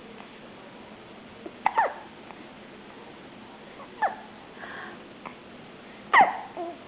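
Baby hiccupping three times, about two seconds apart; each hiccup is a short, sharp squeak that drops quickly in pitch.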